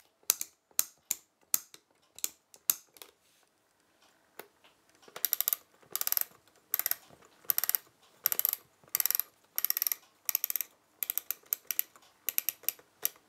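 Solari Udine Cifra 2 flip clock being set by hand: sharp ratcheting clicks from the setting wheel for the first few seconds, then, after a short pause, short bursts of clatter about one or two a second as the number flaps flip over while the time is wound forward.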